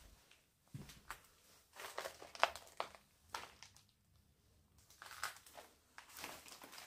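Faint, irregular crunching and crackling of footsteps over a debris-strewn floor, in a small room.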